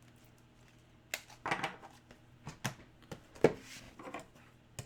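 Trading cards and their packaging being handled: an irregular run of short clicks and rustles that starts about a second in.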